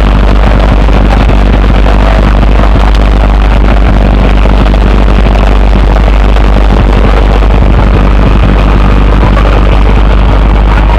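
Portable fire pump's engine running steadily, a loud continuous drone.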